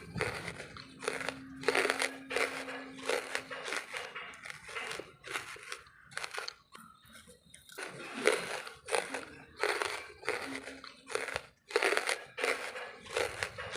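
Wood charcoal being bitten and chewed: a steady run of crisp crunches, about two a second, with a short pause about halfway.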